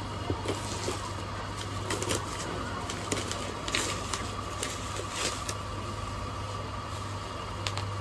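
A delivery package being handled and opened by hand: scattered crinkles and clicks of packaging over a steady low hum.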